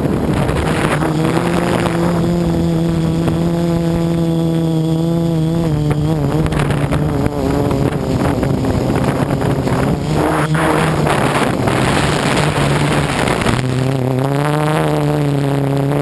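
Quadcopter's electric motors and propellers buzzing steadily, heard close up from a camera mounted on the craft, with wind rushing past. Through the middle the buzz turns rougher and noisier, and it comes back clear and steady about two seconds before the end.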